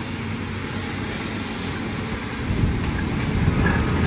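Heavy dump truck driving towards the microphone on a dirt road, its diesel engine and tyres running steadily and getting louder about two and a half seconds in.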